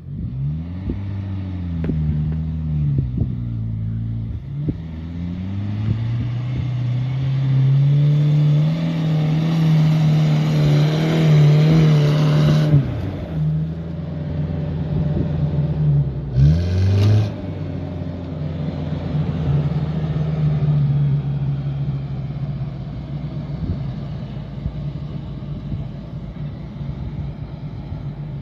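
Engine of a first-generation Nissan Terrano 4x4 revving under load on a rutted dirt climb. Its pitch rises and falls repeatedly, then holds high for several seconds and drops off suddenly before the middle. It surges briefly once more, then settles into steadier running.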